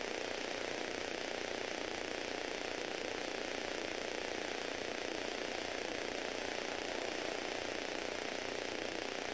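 Steady, even whooshing noise that holds one level throughout, with no clicks or breaks.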